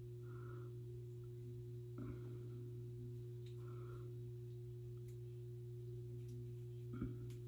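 A steady low hum with a fainter steady tone above it, under a few faint soft handling sounds. A short light knock comes about seven seconds in.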